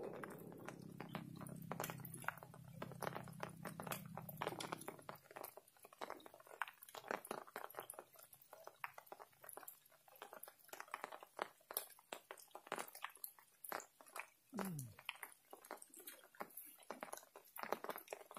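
Drizzle: scattered raindrops ticking and crackling irregularly close to the microphone. A low hum fades out over the first few seconds, and there is a brief falling tone about fourteen seconds in.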